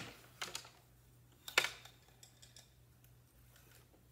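Clicks and clacks of a Louet Erica wooden table loom as the shed is changed and the weft beaten: a few light clicks, one sharper clack about one and a half seconds in, then a few faint ticks.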